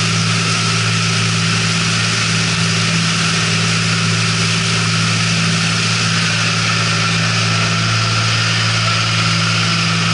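Outboard motors of rigid-hull inflatable rescue boats running steadily side by side at speed: a constant low engine drone over a steady hiss of rushing water.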